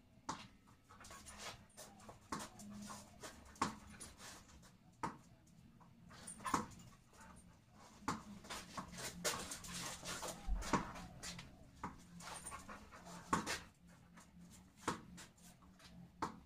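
A dog close by, with many sharp clicks and taps scattered through and a stretch of breathy noise about ten seconds in.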